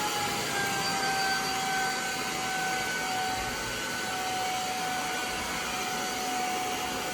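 Hoover portable spot cleaner's motor running steadily with a high whine, its pitch easing slightly lower over several seconds.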